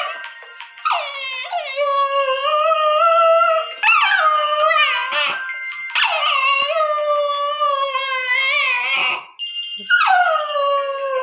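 A dog howling along to a phone alarm's ringtone: about four long howls, each sliding down in pitch and then held, with short breaks between them, over the alarm's electronic melody.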